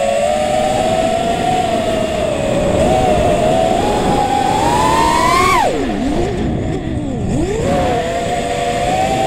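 Racing quadcopter's brushless motors and propellers whining, picked up by the onboard camera, with a noisy rush of air under the tone. The pitch climbs gradually to a high peak about halfway through, then drops steeply twice as the throttle is pulled back, and climbs again.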